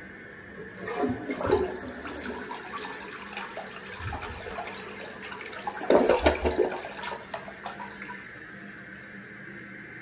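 INAX dual-flush toilet flushing: water rushes into the bowl about a second in and swirls, with a second, louder gush about six seconds in, then dies away about two seconds later.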